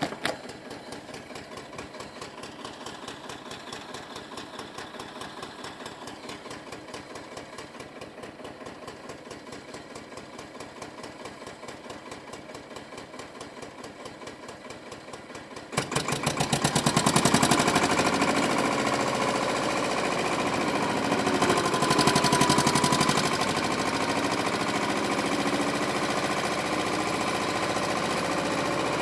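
A diesel engine idling with a steady rhythmic knock. About halfway through, the O&K wheel loader's diesel engine starts up abruptly and runs loud as the loader works into the manure heap, its level rising and falling a couple of times.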